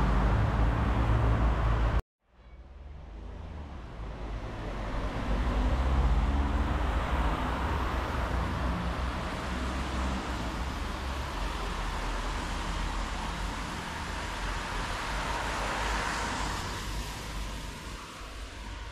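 Street traffic: cars driving by, with a low engine rumble and tyre hiss. The sound cuts out briefly about two seconds in, then fades back up.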